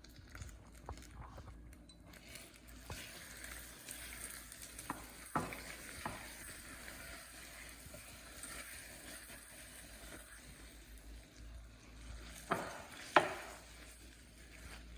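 A spoon stirring a stiff, hot sugar-syrup mixture in a bowl, scraping along, with a few sharp knocks of the spoon against the bowl about five seconds in and again near the end.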